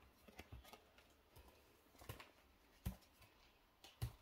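Pokémon trading cards being handled and set down on a table: a few faint taps and rustles, the clearest about three seconds in and near the end.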